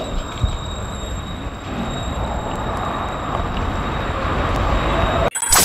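Street traffic noise: the even noise of passing road traffic, growing slowly louder, then cutting off abruptly near the end.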